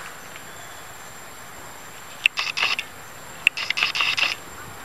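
A camera shutter firing twice in quick bursts, each burst opening with a sharp click and followed by about half a second of rapid clicking, the second burst about a second after the first.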